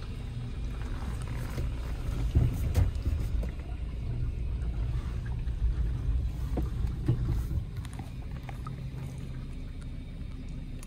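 Car engine running at low speed, a steady low rumble heard from inside the cabin, with a few scattered clicks and knocks about two to three seconds in and again around seven seconds.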